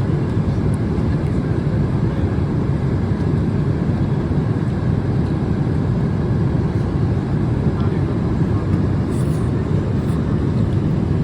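Steady airliner cabin noise: a constant low rumble of the jet engines and rushing air, heard from inside the passenger cabin.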